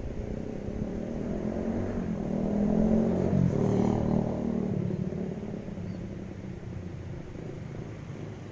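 A motor vehicle's engine passing by, growing louder to a peak a few seconds in and then fading away.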